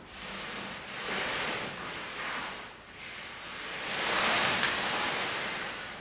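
Pleated woven cloth set with small metal plates rustling and swishing as it is dragged open across a surface into a fan, in several swells of noise, the loudest about four seconds in.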